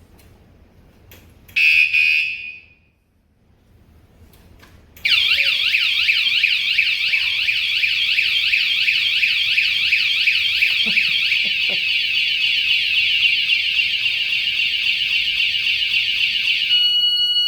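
Wsdcam 113 dB vibration-sensor motorcycle alarm: a short warning chirp about two seconds in, then about five seconds in the full siren goes off, a loud, rapidly warbling high-pitched wail that switches to a stepped run of tones near the end. The first chirp is the alarm's warning on a disturbance; a second disturbance sets off the full siren.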